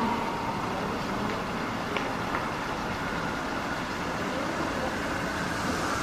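Steady hum of taxis and cars idling in a station taxi rotary, with two faint clicks about two seconds in.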